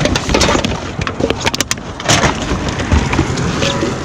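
Irregular knocks, clicks and rattles of rummaging through curbside trash, over a low rumble.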